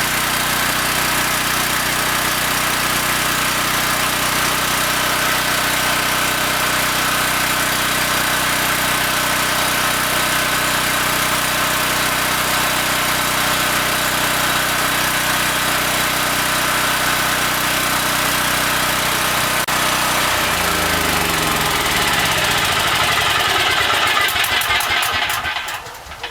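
Homelite 5700-watt portable generator running steadily on natural gas through a US Carburetion tri-fuel kit. About twenty seconds in it is shut off: the engine speed falls away over several seconds, and the sound dies out near the end.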